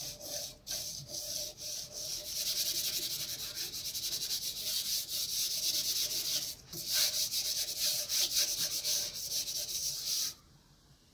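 Hands rubbing soft pastel into paper, blending the background with quick back-and-forth strokes. A brief pause comes about two-thirds through, and the rubbing stops shortly before the end.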